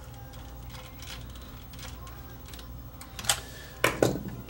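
Small clicks and taps of hands working on the plastic and metal parts of an opened cassette deck's mechanism, with a few sharper, louder clicks late on, over a low steady hum.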